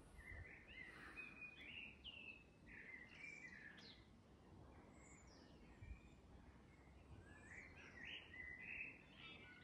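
Faint birdsong: short chirping notes, rising and falling, in several phrases, with a lull around the middle.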